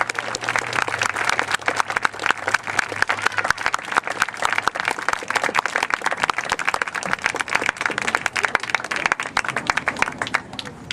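Large crowd applauding, dense steady clapping.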